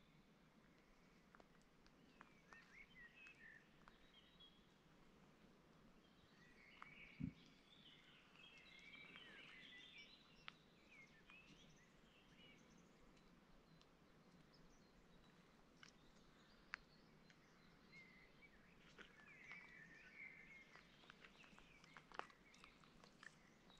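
Faint birdsong from small birds chirping and trilling on and off over a low steady outdoor background noise, with a few soft clicks and a brief low thump about seven seconds in.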